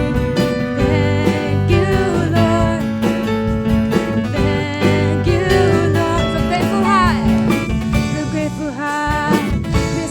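Worship song: singing over guitar-led music.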